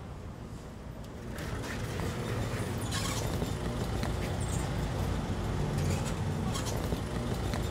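Street traffic: motor vehicles running with a steady low rumble that grows louder about a second in.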